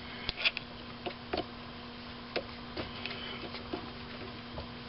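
Scattered light metallic clicks and ticks of a part being seated and the chuck-key pin working in a small lathe's three-jaw chuck, over a steady low hum.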